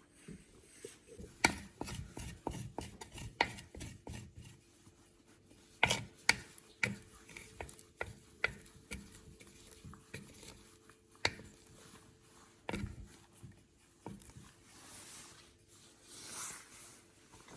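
Kitchen work sounds: irregular knocks, taps and scraping of utensils and dishes on a work surface, over a faint steady hum.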